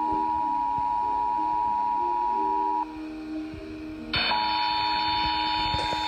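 Emergency Alert System attention signal for a Required Monthly Test: a loud, steady two-tone alert just under 1 kHz. It breaks off about three seconds in and comes back about a second later, joined by a harsher, higher sound. A fainter tune runs underneath.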